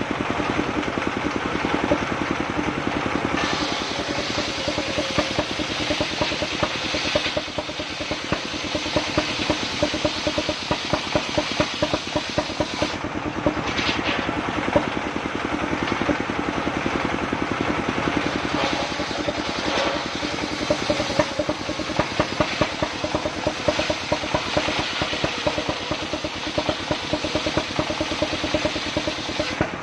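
A portable circular sawmill's diesel engine runs steadily with rapid firing pulses while the circular saw blade rips a mahogany log lengthwise. The hissing cutting sound is weaker for the first few seconds and drops out briefly about 13 seconds in.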